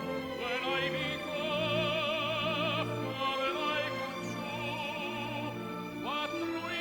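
Operatic tenor singing held notes with a wide, even vibrato over an orchestral accompaniment.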